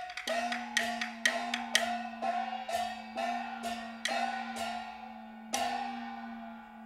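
Live accompaniment music for a Taiwanese glove-puppet show: a pitched, wood-block-like percussion instrument struck in a steady beat about twice a second over a held low note, dying away for the last second or so.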